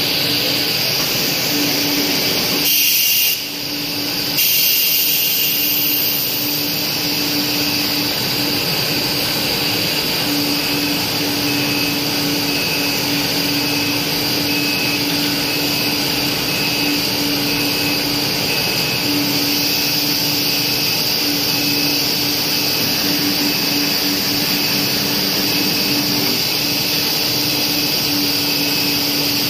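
2000 mm cast stretch film production line running, a steady, loud machine noise with a constant high whine, briefly broken about three seconds in.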